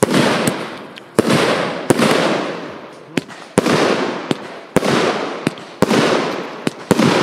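Firework cake (battery) firing a steady run of shots, about one a second. Each shot is a sharp launch crack followed about half a second later by a loud bang with a long, fading hiss.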